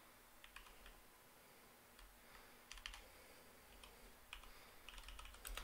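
Faint typing on a computer keyboard: scattered keystrokes with a couple of quick runs, one about three seconds in and another near the end.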